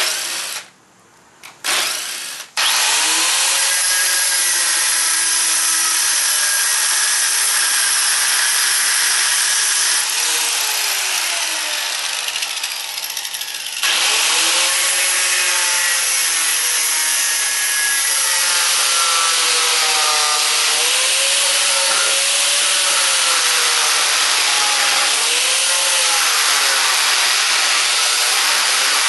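A few short bursts of a cordless drill driving screws into wooden slats, then, about two and a half seconds in, an electric angle grinder grinding on a rusted steel bench frame. The grinder runs loud and continuous, its whine rising and falling as the load on the disc changes.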